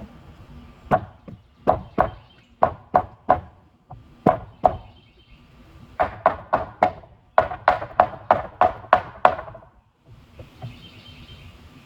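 Hammer blows on wooden door-frame trim, knocking at nails: about eighteen sharp strikes in uneven groups, the quickest runs about three a second, with short pauses between.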